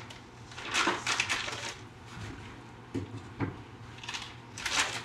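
A plastic pastry bag crinkling and rustling as thick choux paste is spooned into it, in two spells about a second in and near the end, with a couple of soft knocks in between.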